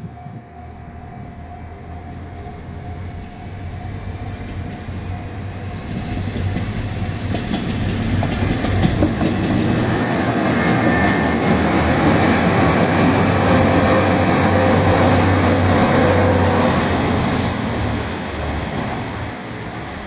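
Four-car diesel multiple unit of JR Shikoku 1500 series and 1200 series railcars passing slowly over a level crossing, diesel engines running and wheels clicking over rail joints. It grows louder to a peak about halfway through, then fades. A steady level-crossing warning tone at the start fades away within the first few seconds.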